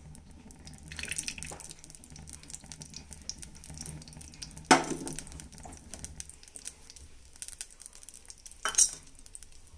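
Oil heating in a cooking pot, with a faint crackle of small pops. Kitchenware clanks sharply twice, about five seconds in and near the end.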